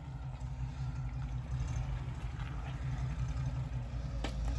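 Toyota Land Cruiser's engine running at low speed as it crawls along a muddy trail, a steady low hum, with a short sharp knock about four seconds in.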